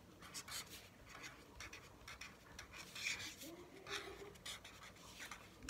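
Pen scratching on paper in many quick short strokes as someone writes, quietly.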